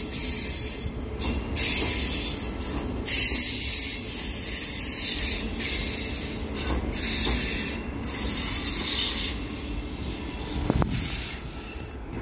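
Cars of an ES1P 'Lastochka' electric train, towed by a diesel locomotive, rolling past close by: a steady rumble of wheels on rail with a high hiss that swells and fades every second or so. The sound grows fainter near the end as the train moves away.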